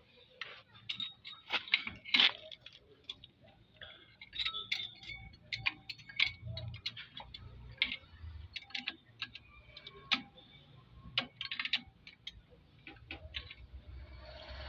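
Irregular metallic clicks and clinks of hand tools and metal parts being handled during engine work, sometimes a few in quick succession.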